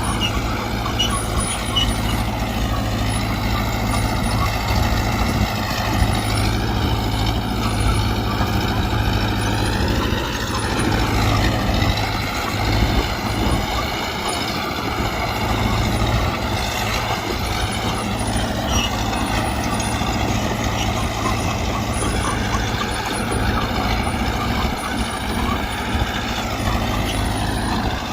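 Mitsubishi BD2G bulldozer's diesel engine running steadily at work, with a higher whine that wavers up and down throughout.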